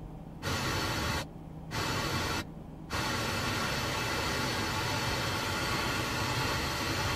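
Car FM radio hiss and static on a weak, distant 94.9 FM signal. The audio mutes briefly three times in the first three seconds as the tuner switches between presets, then the static holds steady.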